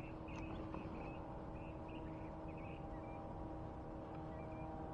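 A steady low hum holding a few fixed tones, with faint short high chirps in the first three seconds.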